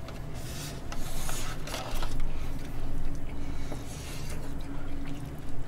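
Eating sounds: chewing, with chopsticks and a spoon clicking and scraping against plastic takeout containers.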